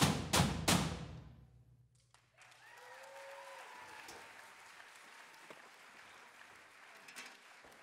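Final three drumstick strikes on galvanized metal trash cans, ringing out and dying away. After a brief pause the audience starts applauding, with some cheering near the start of the applause.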